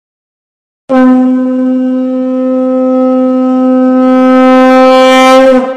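A conch shell (shankh) blown in one long, loud, steady note. It starts abruptly about a second in, grows brighter toward the end, and dips slightly in pitch as it breaks off.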